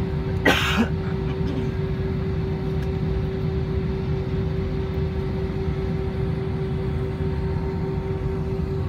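Airbus A320 jet engines running at taxi power, heard inside the cabin as a steady low rumble with a constant hum. A passenger makes a short vocal sound about half a second in.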